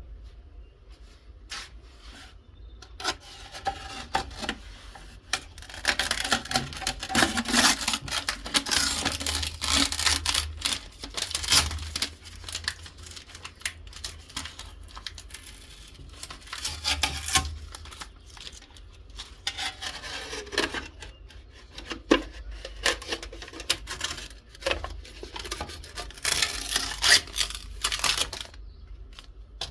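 Hand scraping and rubbing in several bursts of a few seconds each, with scattered sharp clicks and small knocks between them.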